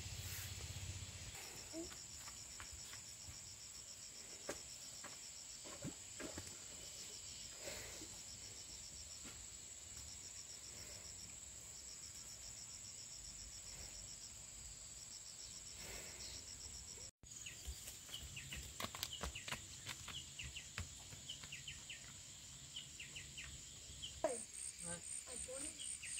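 Forest insects droning steadily at a high pitch, with repeated runs of fast, evenly pulsed chirping and scattered faint clicks. The sound drops out for an instant about two-thirds of the way through, then short high chirps follow, and a new pulsed high trill comes in near the end.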